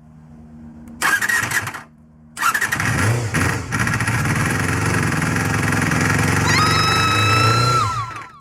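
Honda MC23 Jade's MC14E 250 cc inline-four engine starting: a short burst of cranking about a second in, then it fires and runs loudly for several seconds before cutting off near the end, with a high whine gliding in over the last two seconds.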